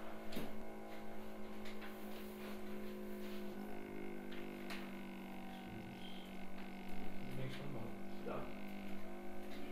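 Steady electrical hum, with scattered faint clicks and taps.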